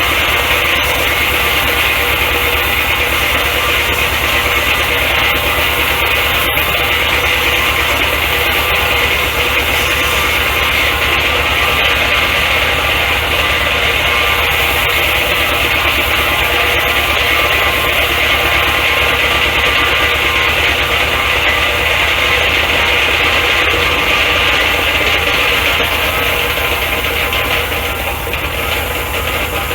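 An engine running steadily at constant speed, driving the sawmill while a turning part is polished with sandpaper to take off rust, with a steady hiss over the engine note. It gets a little quieter near the end.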